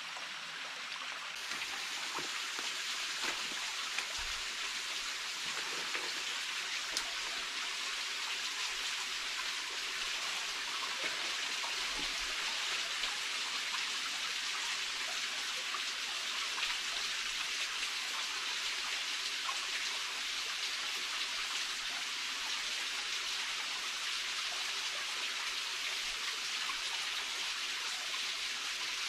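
Steady hiss of water, rain or running stream water, growing a little louder about a second in, with a few faint ticks.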